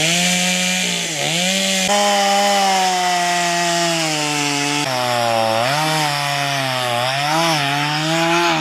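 A high-revving power tool running hard under load, its pitch sagging and picking back up several times as the work bogs it down and releases it.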